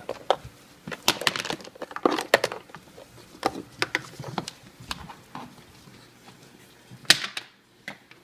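Toy blocks knocking and clacking together as they are handled and set down, in irregular sharp knocks, the loudest about seven seconds in.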